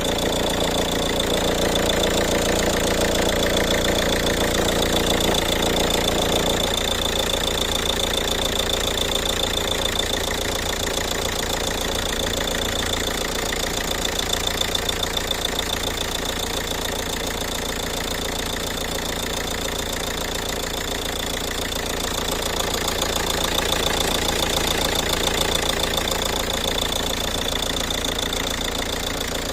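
Ford Kuga engine running at idle with an unwanted engine noise: a fast, even ticking over a steady high-pitched whine. A fuller mid-pitched layer drops away about six or seven seconds in.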